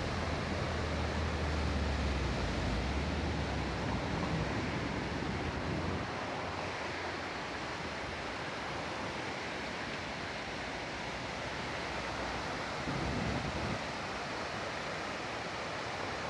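River in flood, a fast brown torrent rushing and churning: a steady rush of water, with a deep rumble strongest in the first few seconds.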